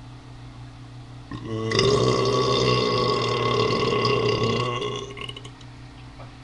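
A man's long, loud burp that starts about a second and a half in and lasts about three and a half seconds.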